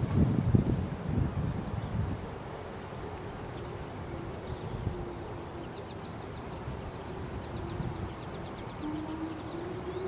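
Distant outdoor tornado warning siren sounding a faint steady tone that wavers slightly and rises in pitch near the end. Wind buffets the microphone during the first two seconds.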